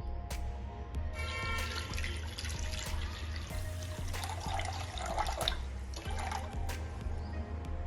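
Background music with a steady low beat. Over it, from about a second in until near the end, water running and splashing.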